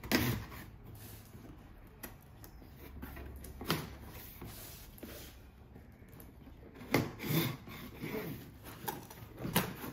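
A long cardboard golf-club box being opened and handled, with a sharp knock at the start and scattered scrapes and rustles. A denser patch of crinkling wrapping comes late as a driver with a wrapped head is drawn out of the box.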